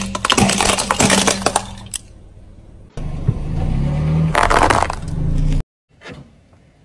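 A car tyre rolling slowly over small candies, crushing them in a rapid crackle of snaps over the car's low engine hum. After a cut, the tyre crunches over a candy necklace in a dense burst that stops suddenly.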